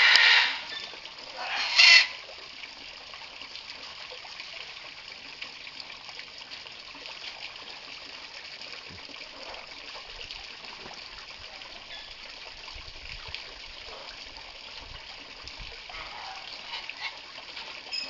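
Blue-and-gold macaw giving two loud squawks in the first two seconds, then a garden hose's jet of water splashing steadily into a birdbath.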